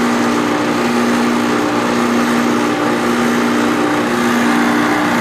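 Refrigerant recovery machine running steadily in recovery mode, its compressor and fan making a constant hum over an even whir.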